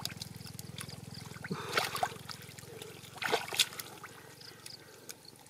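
Hands groping and splashing through shallow muddy water, with two short clusters of splashes, about a second and a half in and again about three and a half seconds in. A low steady hum runs beneath the first half and fades out.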